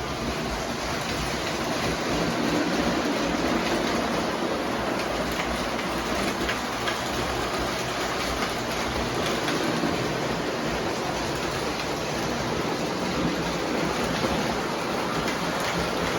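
O gauge model train running on three-rail track: a steady rolling noise of wheels on rail with faint scattered clicks.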